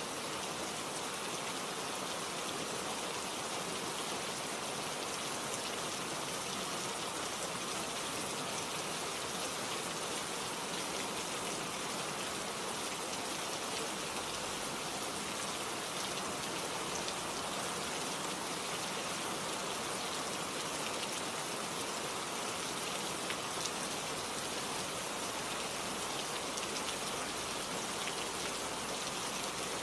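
Steady rain falling, an even hiss with fine scattered drop ticks of rain on a surface.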